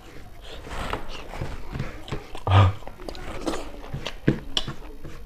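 Close-miked eating sounds: chewing and wet mouth clicks while fingers gather rice off a banana leaf, with one louder thump about two and a half seconds in.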